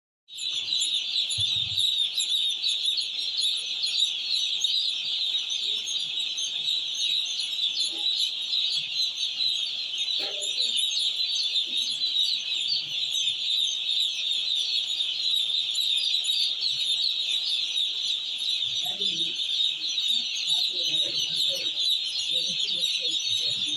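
Many chicks cheeping together: a dense, unbroken chorus of high-pitched peeps. A few lower clucks join in near the end.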